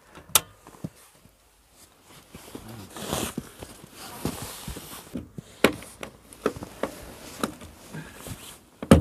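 Plastic cable-tie tails being snipped off with cutters: about six sharp, irregular clicks, with a few seconds of rustling handling in the middle.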